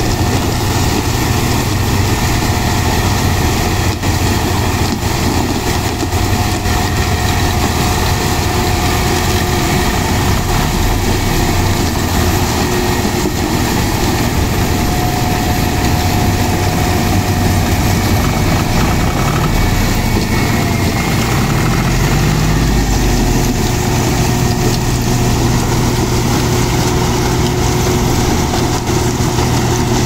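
John Deere CH330 sugarcane harvester, with its 6.8-litre six-cylinder diesel, running while it cuts and chops cane, together with the John Deere 5310 tractor hauling the cane trailer alongside: a steady, loud mix of diesel engines and machinery. The engine note rises a little around twenty seconds in.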